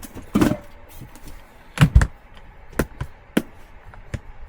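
Handling noise: scattered knocks and taps of objects being picked up and set down, with two heavier thumps in quick succession a little under two seconds in.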